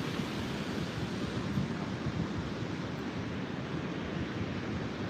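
Pacific Ocean surf washing in steadily, with wind noise on the microphone.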